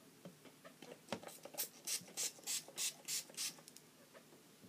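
Finger-pump mister of a bottle of Wet n Wild Photo Focus makeup setting spray being spritzed onto the face: about seven quick hissing sprays in a row, roughly three a second, after a small click about a second in.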